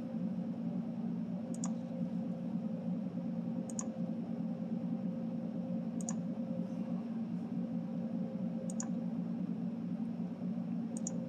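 Computer mouse clicking about five times, a couple of seconds apart, over a steady low hum.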